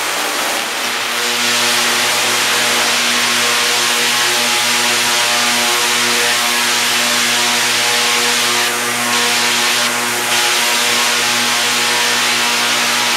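Tesla coil firing 2.5-million-volt arc discharges: a loud, steady buzz on an even pitch with dense crackling hiss.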